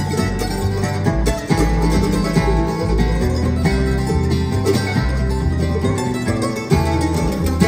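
Live acoustic bluegrass instrumental on mandolin, acoustic guitar, fiddle and upright bass: fast plucked mandolin and guitar over an upright bass stepping from note to note.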